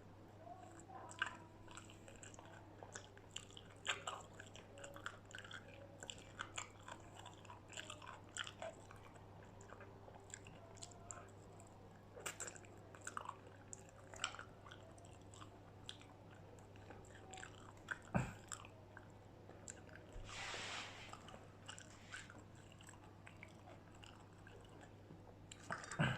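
A person chewing and biting into crispy battered fried food, with many small crunches throughout. A single sharp knock comes about two-thirds of the way through.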